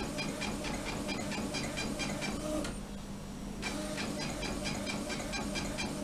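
Epson inkjet printer printing a page: quick, evenly repeated clicks as the print head shuttles, over a steady motor hum. About three seconds in it pauses for roughly a second, then carries on.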